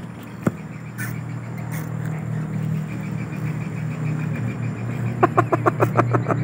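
A steady low motor hum, joined about five seconds in by a rapid run of sharp animal calls, about eight a second.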